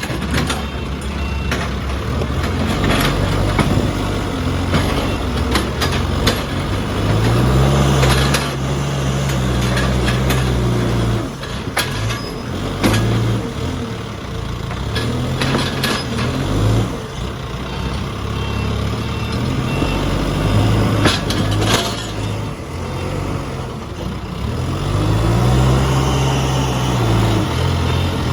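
Case 851EX backhoe loader's diesel engine running, its pitch rising and falling several times as the revs go up and back down, with scattered sharp clanks.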